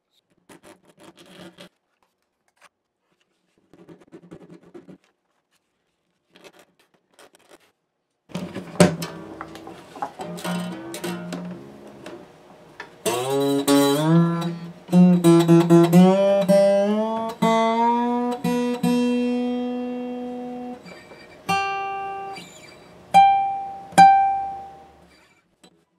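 Acoustic guitar strings plucked while being tuned up to pitch: several notes slide upward as the pegs are turned. A few single sharp plucks near the end check the tuning, the strings brought to pitch to measure intonation after reshaping the saddle.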